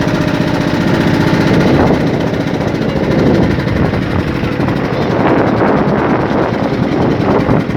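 A boat's engine running steadily, heard from on board.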